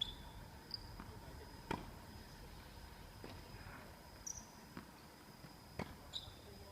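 Irregular sharp knocks of a ball game in play, about five in a few seconds, with a few short high squeaks between them.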